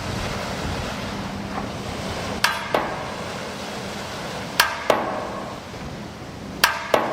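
Three pairs of sharp metallic knocks, each with a short ring; the two knocks in a pair come in quick succession and the pairs are about two seconds apart. A steady low hum runs underneath.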